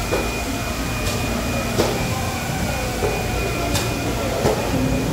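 Fish-market floor ambience: a steady mechanical hum and rush of noise, broken by sharp clicks and knocks about once a second.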